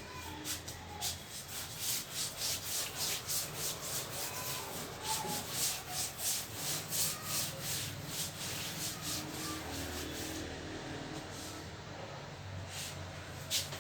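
Writing by hand: a run of short scratchy strokes, about two or three a second, that stops about ten seconds in and starts again briefly near the end.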